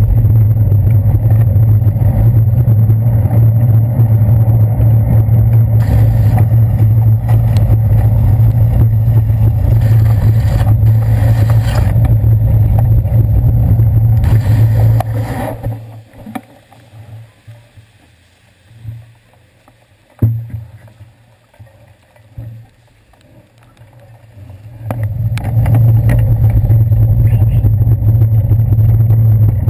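Steady low rumble of a handlebar-mounted GoPro Hero 2 in its housing, picking up the bicycle's road vibration and wind while riding on wet pavement. A little past the middle the rumble drops away for about ten seconds, leaving faint traffic and one knock, then comes back at full level.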